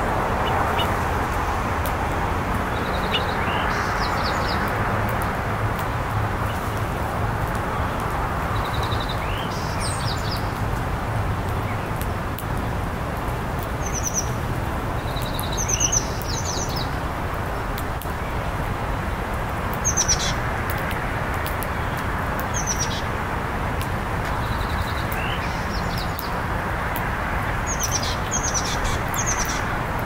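Small songbirds giving short, high chirps in little clusters every few seconds, over a steady low background rumble.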